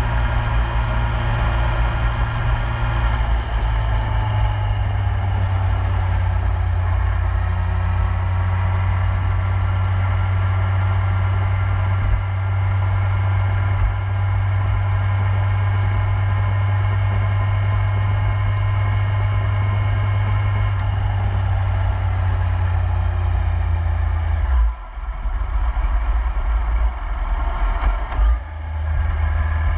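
2008 Yamaha YZF-R1's inline-four engine running steadily at cruising speed. The sound drops briefly twice near the end, then picks up again.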